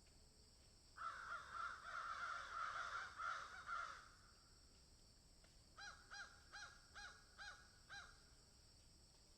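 Crows cawing: for about three seconds several birds call over one another in a dense, overlapping run, then after a pause one series of six separate caws follows, roughly two a second.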